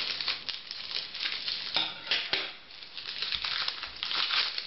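Scissors snipping through a plastic postal bag, then the plastic packaging crinkling and rustling as the parcel is pulled open and the packet inside handled.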